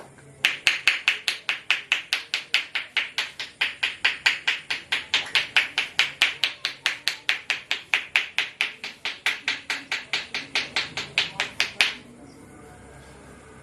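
Rapid, even hand strikes of a percussive massage: the barber's hands slapping in a steady rhythm of about four sharp claps a second. They stop abruptly about a second and a half before the end, leaving quiet room tone.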